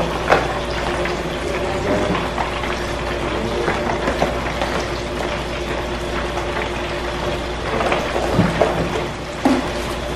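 A spoon stirring and scraping mashed potato salad in a plastic mixing bowl, with a few soft knocks, over a steady hiss.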